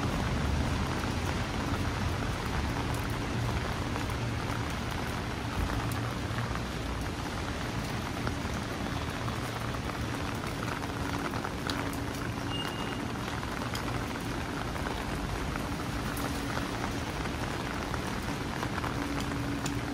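Heavy rain falling steadily and pattering on an umbrella, with a low rumble underneath.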